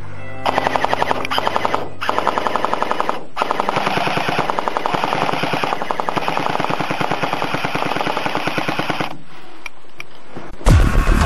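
Airsoft gun firing on full auto: three bursts of rapid, evenly spaced shots, the last one long, about five to six seconds.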